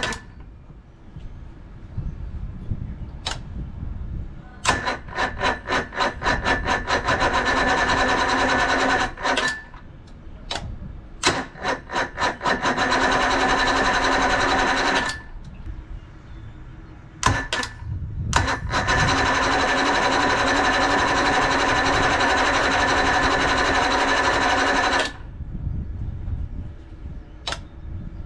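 Electric starter cranking a 1976 Johnson 135 hp two-stroke outboard in three long bursts, each starting with a quick pulsing that settles into a steady whine, with sharp clicks between the attempts; the engine does not catch.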